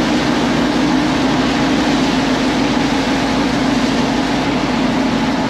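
Steady drive noise heard from inside a 1983 Jeep CJ-7 at road speed on a wet highway: the AMC 258 inline-six's drone through its Borla exhaust, mixed with wind and the hiss of tyres on the wet road. The level stays even throughout.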